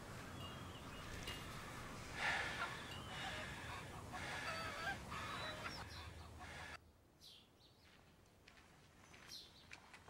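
Faint bird calls, short chirps, over a steady low background noise that drops away suddenly about two-thirds of the way through.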